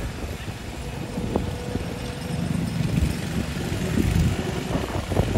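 Small vintage tractor engine running at low speed as the tractor drives slowly.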